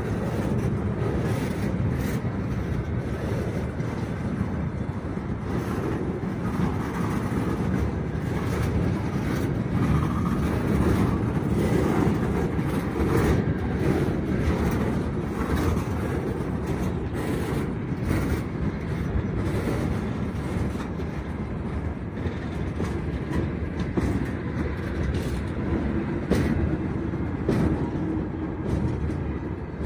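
A long freight train's wagons rolling slowly past close by: a steady low rumble of steel wheels on the rails, broken by irregular clicks and knocks from the wheels and couplings.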